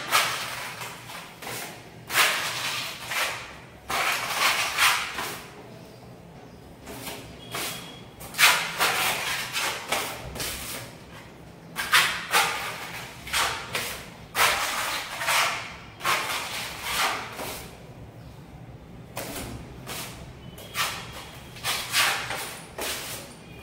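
Putty blade scraping wet wall putty across a plastered wall in about a dozen separate strokes, each about a second long, with short pauses between them, spreading a first coat.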